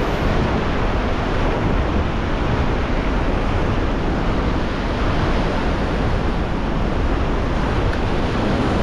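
Ocean surf washing in steadily, mixed with wind rumbling on the microphone.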